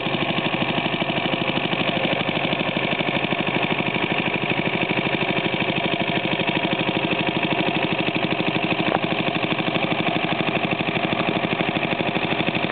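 Briggs & Stratton Model I single-cylinder air-cooled engine driving a 1944 PE-77 Army Signal Corps generator, running steadily with an even, rapid exhaust beat.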